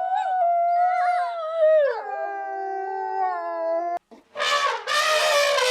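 A dog howling: one long, wavering, pitched howl that drops in pitch about two seconds in and is held until it cuts off suddenly at about four seconds. Just after, a harsh, rasping animal call begins.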